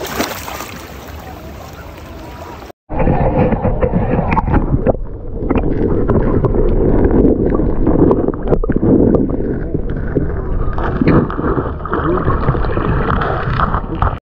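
Water splashing softly around a dog wading in shallow water, then after about three seconds an abrupt change to loud, muffled churning and bubbling water with scattered knocks, heard through a camera submerged with the dog as it moves through the lake.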